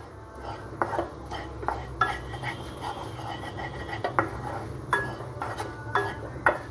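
Wooden spatula scraping and knocking in a non-stick kadai as scrambled eggs are stirred and broken up, in irregular strokes. A steady low hum runs underneath.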